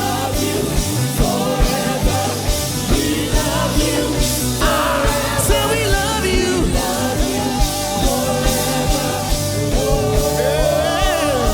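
Live gospel band music: drums keep a steady beat under bass and keyboards, with a sung melody over them.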